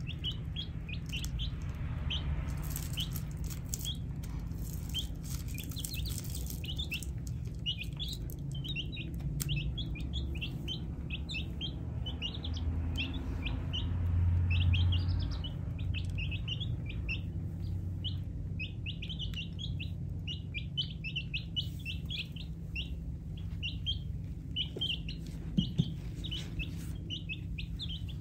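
Baby chicks peeping: a constant stream of short, high cheeps from several chicks, over a low steady hum.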